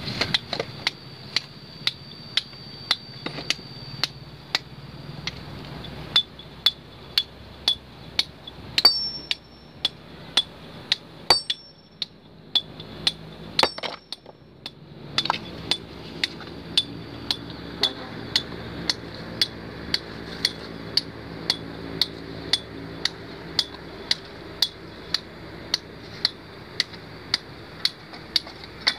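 Hammer striking rock to split a boulder: sharp blows, each with a short metallic ring. They come irregularly at first, stop for about two seconds midway, then settle into a steady rhythm of about two a second.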